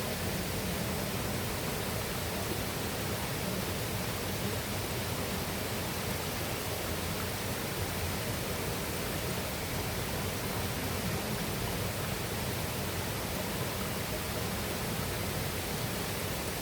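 Steady rushing of a mountain river and waterfall, an even hiss of flowing water that does not change.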